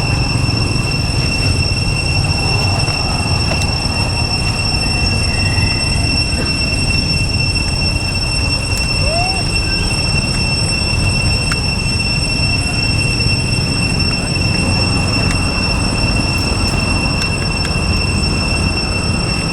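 Cicadas droning in one steady high-pitched tone over a constant low rumble, with a brief faint rising squeak about nine seconds in.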